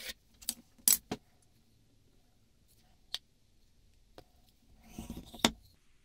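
Scattered sharp clicks and light metallic clinks of hand tools and small metal plane parts being handled on a workbench, with a short clatter near the end. The loudest click comes about a second in.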